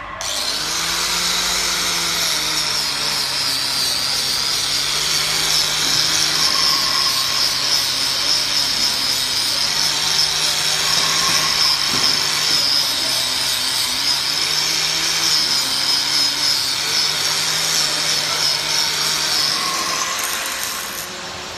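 Handheld electric angle grinder running continuously as it grinds a steel mould tube, a steady high grinding hiss over the motor's hum. The motor pitch dips and recovers a few times as the disc is pressed into the metal.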